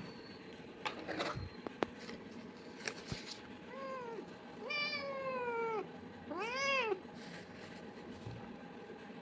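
Domestic cat meowing three times: a short meow, a long falling one, then one that rises and falls. A few sharp clicks or knocks come before the meows.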